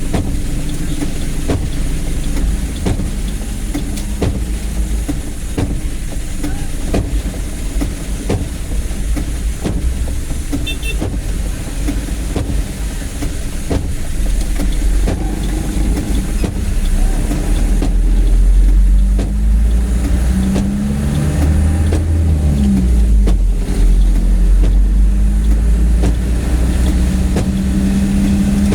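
Vehicle engine running in slow traffic. Its note rises and falls through a few gear changes in the second half.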